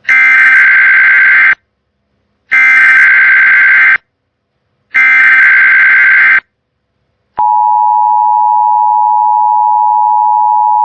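NOAA Weather Radio test signal: three loud SAME digital header bursts of about a second and a half each, a second apart, then a steady warning alarm tone that starts about seven seconds in and holds. It is the routine test of the weather radio public warning system.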